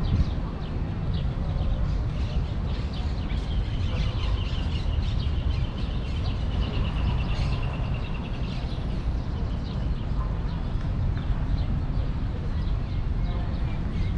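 Outdoor ambience of birds chirping, with one bird giving a rapid trill for about four seconds, over a steady low background rumble.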